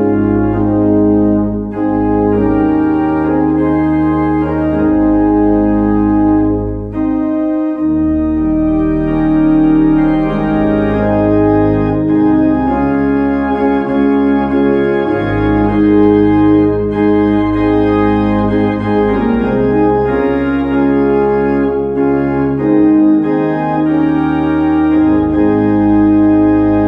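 Organ postlude at the close of a service: sustained chords over a bass line that shifts every few seconds, with a brief dip in level about seven and a half seconds in.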